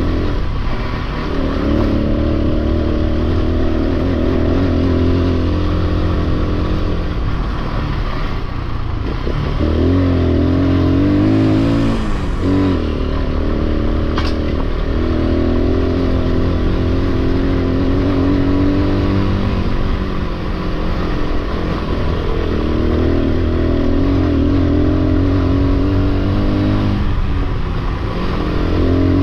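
Victory MRX Arizona 200 motorcycle's single-cylinder engine running under load over a rough dirt track. Its pitch rises and falls with the throttle, and it dips and picks up again several times.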